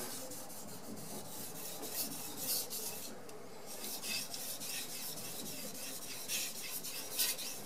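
Knife blade stroked back and forth on a wet 8000-grit Carborundum waterstone: a faint, soft scrape with each pass. The dense fine stone is very quiet and makes almost no noise.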